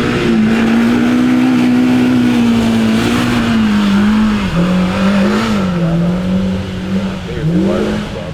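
Side-by-side UTV engine running hard at high revs, its pitch holding steady for a few seconds, then dipping and climbing again several times in the second half.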